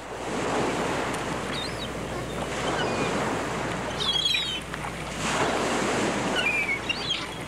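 Sea surf breaking and washing ashore, swelling every two or three seconds, with wind and a few short, high bird calls.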